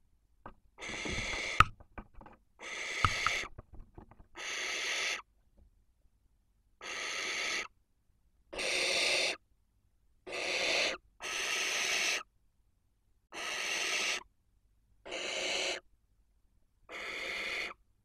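Barn owls giving about ten raspy, hissing calls, each about a second long, spaced every second or two. A few sharp knocks and scrapes come among the first calls.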